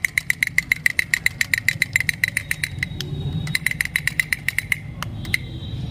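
Toy drummer doll beating its small drum with two sticks: rapid, even tapping with a ringing note on each strike over a low hum. It stops about five seconds in after a few last taps.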